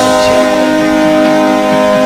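Airchime KMJ-234 air horn blowing a steady multi-note chord as a hockey goal horn.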